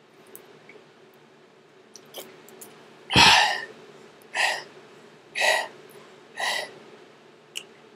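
A man making short throaty bursts while chugging a liter of carbonated soda: four of them about a second apart. The first, about three seconds in, is the loudest and longest. A low steady hum runs underneath.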